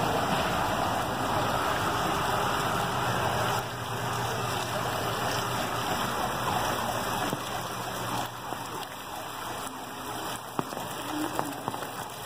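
Heavy rain falling on a flooded street, with water running along the road, making a steady hiss that eases a little about three and a half seconds in.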